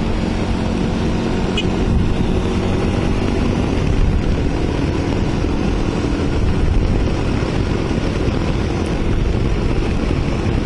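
Motorcycle cruising at a steady speed: wind rushing over the microphone, with the engine's steady drone underneath.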